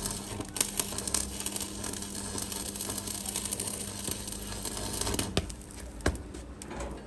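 Electric arc welding: the arc crackling and sizzling over a steady low hum, dying away about five seconds in, followed by a few sharp clicks.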